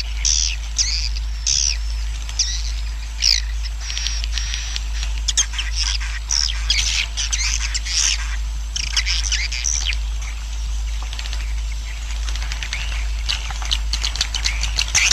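A swiftlet colony twittering: many birds giving rapid, overlapping high chirps and trills without a break. This is the 'suara inap' roosting call that swiftlet farmers play to draw birds in and make them settle. A steady low hum runs underneath.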